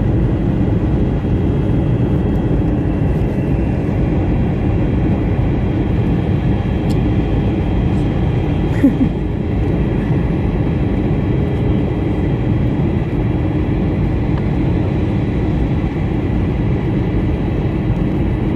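Steady engine and airflow noise inside an airliner cabin in flight. A short, brief sound comes through it about nine seconds in.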